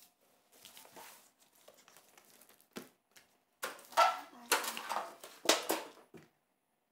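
Rummaging on a floor: soft paper rustling, then louder knocks and scrapes as a box is pulled across the floor and handled, loudest about four and five and a half seconds in.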